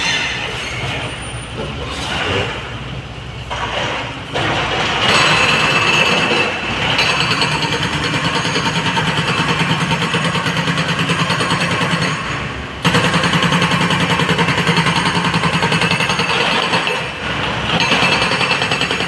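Hydraulic rock breaker on an excavator hammering rock in fast, even blows. The blows get louder about four seconds in and break off briefly a little after halfway. Heavy diesel engines run underneath.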